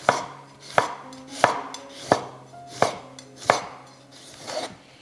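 Knife slicing a tomato thinly on a chopping board: six sharp, even taps about two thirds of a second apart, then softer handling sounds near the end.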